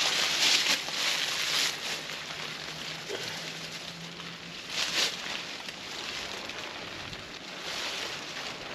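Rustling and crunching in dry leaf litter and tarp fabric while a tarp is pulled out and staked: a few short bursts in the first two seconds and another about five seconds in. Beneath them runs a steady outdoor hiss.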